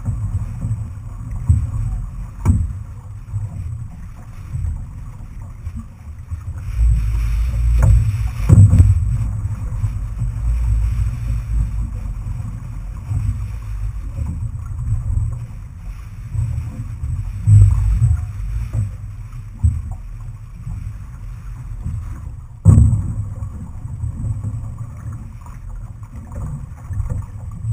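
Outrigger canoe under paddle, heard from a camera on the hull: wind buffeting the microphone in an uneven low rumble over the hiss of water. A few sharp knocks cut through, the loudest late on.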